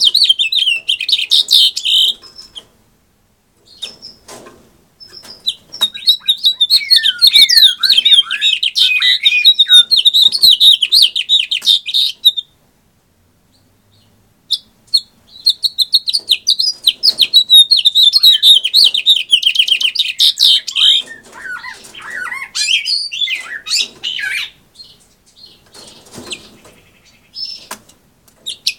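Male house finch singing: long, rapid warbling phrases of high notes with swooping slurs, separated by short pauses, with shorter snatches of song near the end.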